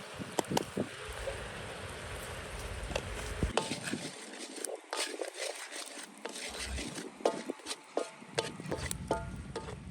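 Food frying in a pan, a steady hiss, with scattered clinks and knocks of a utensil stirring it; some of the later clinks ring briefly like metal.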